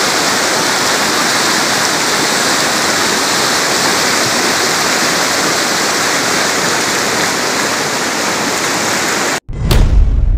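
Floodwater rushing fast over a flooded road, a loud, steady sound of churning water. About a second before the end it cuts off abruptly and a deep whoosh-and-boom sound effect takes over.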